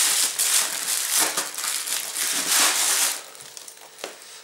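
Clear plastic film crinkling and crackling as it is torn and pulled off a wrapped bottle by hand, dying down about three seconds in, with one light knock near the end.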